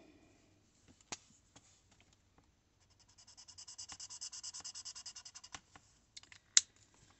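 Shuttle Art alcohol marker tip scrubbed rapidly back and forth on paper, about eight strokes a second for some three seconds, filling a small swatch square. A sharp click near the end, the loudest sound, as the marker's plastic cap snaps back on.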